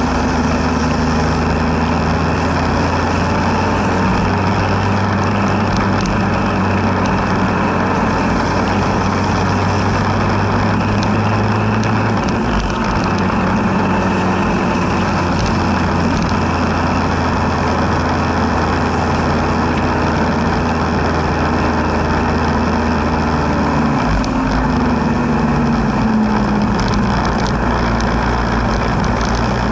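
Motorcycle engine running at road speed under a steady rush of wind and road noise on the bike-mounted microphone; the engine note drops about twelve seconds in and shifts again near the end.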